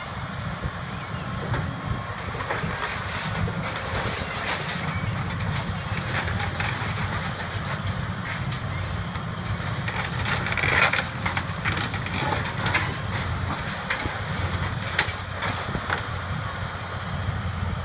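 Cat hydraulic excavator's diesel engine running steadily while its bucket tears into a corrugated sheet-metal roof, with repeated crunches, clanks and scraping of metal and debris. The loudest crunch comes about eleven seconds in.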